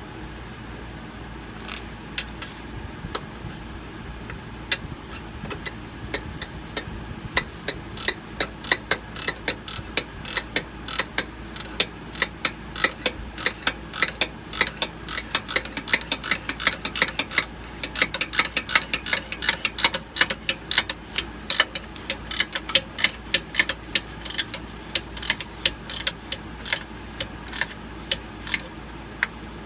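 Hand ratchet wrench clicking in irregular runs as a nut is run down and tightened on an air spring's mounting stud. The clicks are sparse at first and become frequent from about seven seconds in.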